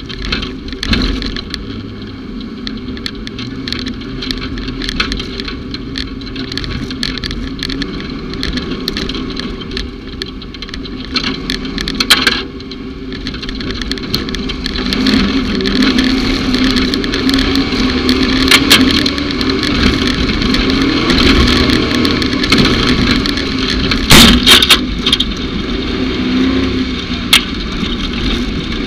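Off-road vehicle engine running under load, its pitch rising a little about fifteen seconds in, with many sharp knocks and rattles throughout and louder bangs about twelve and twenty-four seconds in.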